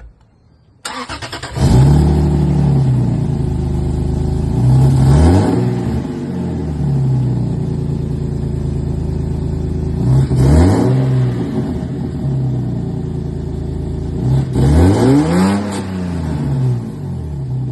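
Car engine cranking briefly and catching about a second in, then idling loudly and being revved three times, the pitch rising and falling each time.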